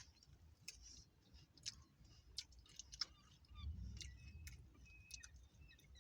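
Faint, irregular crunching clicks of someone chewing a crunchy taco shell, with a brief low rumble about four seconds in.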